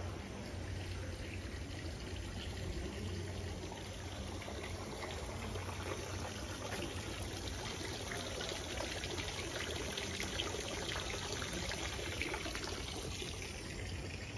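Water from a public fountain's spout pouring and splashing steadily into a stone basin.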